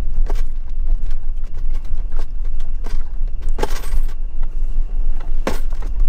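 Steady low wind rumble on the microphone, with irregular crunching and clinking steps on a gravel track. The loudest steps come about halfway through and near the end.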